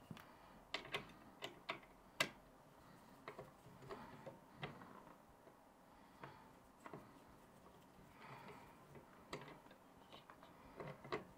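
Faint, irregular small clicks and taps of a screwdriver and screws against the metal M.2 heatsink plate of a motherboard as it is fitted and screwed down.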